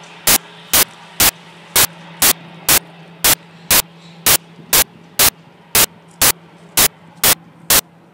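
Loud bursts of static, evenly spaced at about two a second, over a steady low hum. It sounds like a recording glitch rather than anything in the scene.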